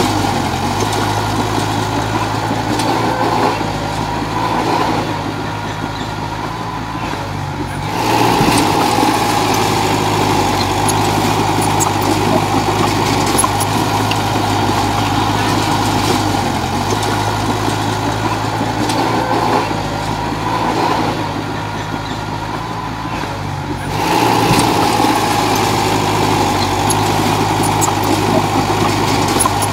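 Komatsu D31 bulldozer's diesel engine running steadily as it pushes soil. It goes quieter for a few seconds twice, about four seconds in and again about twenty seconds in, then picks up again.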